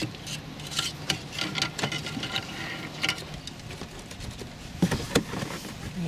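Hands working a thin LED wire through the plastic door-handle bowl and handling the interior door trim: rubbing and rustling with scattered light clicks, and two louder plastic knocks a little before the end. A steady low hum runs underneath.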